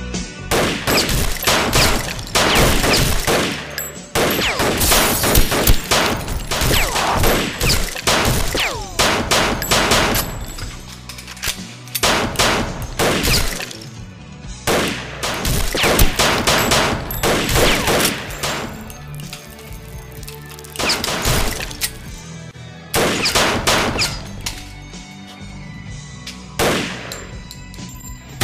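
Action-film soundtrack: volleys of gunfire and hard hit sound effects over music, coming in dense clusters with quieter stretches between.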